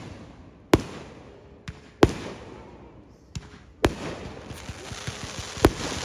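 Fireworks going off: a series of sharp bangs roughly one to two seconds apart, four loud and two fainter, with a hissing crackle building up in the second half.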